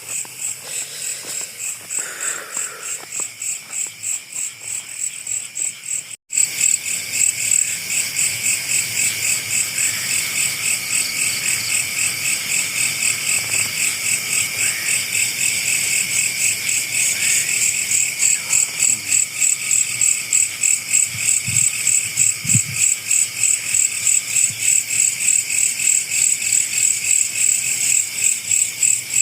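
A chorus of night insects chirping in rapid, even pulses, high-pitched and steady. The sound cuts out for an instant about six seconds in and comes back a little louder.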